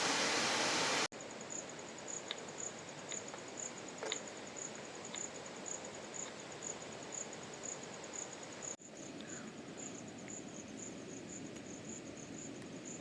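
A loud rush of water for about the first second, then cut off abruptly. Insects chirp in a steady high pulse, a few times a second, over a low hiss, with a few faint ticks.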